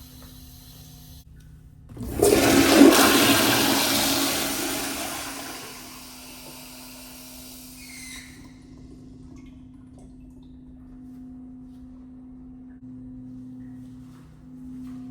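American Standard Afwall wall-hung toilet flushing: a sudden rush of water about two seconds in, loudest at first, then tapering off over several seconds and stopping near the eight-second mark. A steady faint hum runs underneath.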